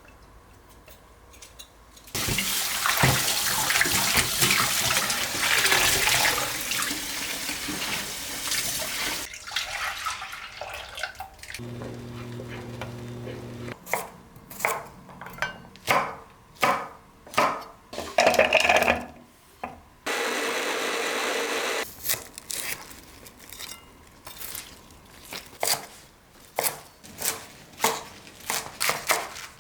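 Kitchen sounds: water running from a tap into a sink for several seconds, then a string of short knocks and clatters of things being handled, with brief steady hums in between.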